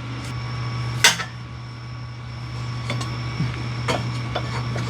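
Sharp metal-on-metal clinks of hand tools and a socket being worked onto a suspension nut: one loud clink about a second in, then several lighter ones near the end, over a steady low hum.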